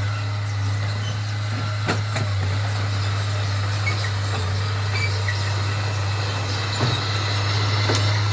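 Heavy diesel earthmoving machine running steadily with a deep, even engine drone, with a few faint clanks.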